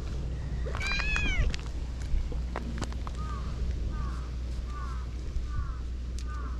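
Stray cats meowing: one loud meow that rises and falls about a second in, then five short, quieter falling mews at an even pace from about three seconds in.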